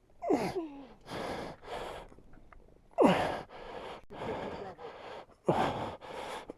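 A person's heavy, laboured breathing from hard physical effort: a rapid series of noisy breaths, three of them louder exhales that each begin with a short falling groan.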